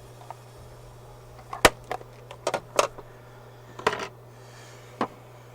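Five or so sharp clicks and taps of small hard objects being handled on a workbench, the loudest about a second and a half in, over a steady low hum.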